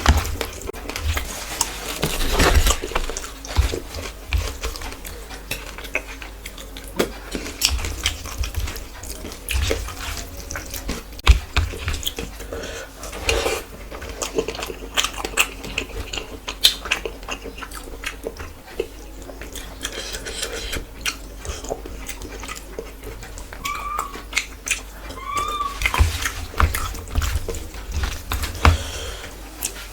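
Close-miked eating: chewing and wet mouth sounds with many small clicks and clinks from the plate.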